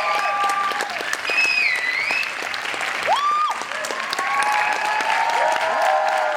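Theatre audience applauding in a dense, steady clatter of clapping, with high voices calling and shouting over it at times.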